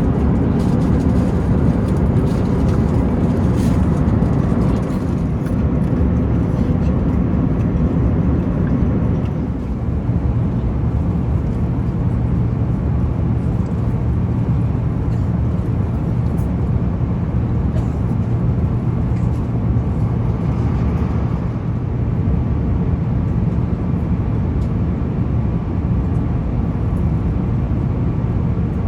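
Steady low rumble of an Airbus A350-900 passenger cabin in cruise flight: engine and airflow noise with a low hum, easing slightly about ten seconds in.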